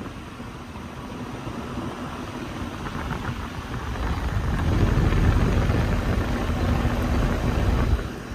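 2005 Carrier Infinity central air conditioner's outdoor condenser running steadily, its scroll compressor muffled by a sound blanket, with a faint low hum under the fan noise. It grows louder about halfway through.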